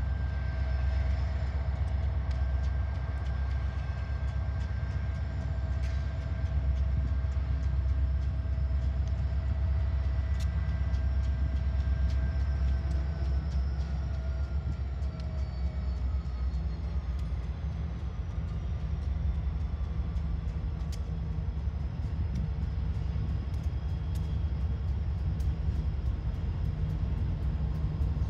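Union Pacific diesel freight locomotives approaching slowly, with a steady low engine rumble. Faint tones glide downward around the middle, and sharp clicks come more and more often near the end as the train draws close.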